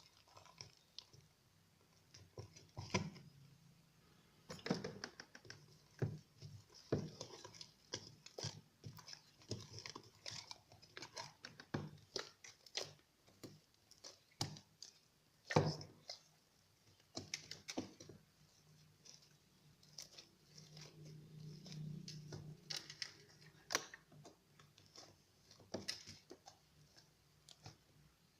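Cream cheese slime being kneaded and stretched by hand: irregular sticky squelches, clicks and small pops.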